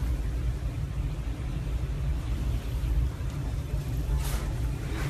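Steady low rumble, with a brief rustle about four seconds in.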